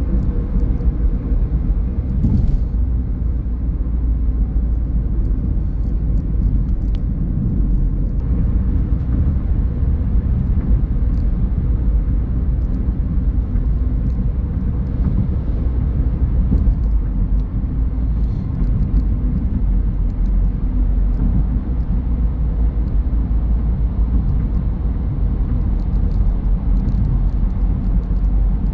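Car driving along a road: steady low rumble of tyre and road noise.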